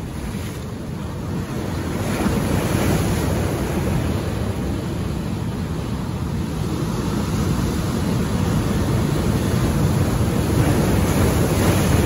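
Ocean surf crashing over and around shoreline rocks: a continuous rushing wash of breaking water that swells over the first two or three seconds and stays loud, with white water surging through the rocks near the end.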